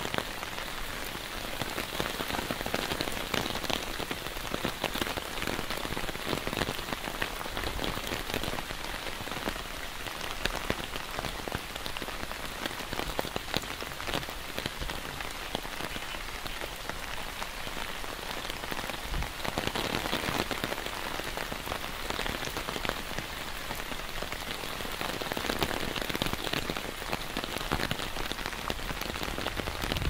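Heavy rain falling on an umbrella held overhead: a dense steady hiss of rain with many separate drops striking, swelling a little now and then.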